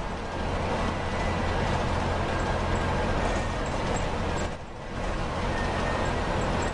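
Steady road noise of a moving vehicle, with a low rumble, dipping briefly about four and a half seconds in.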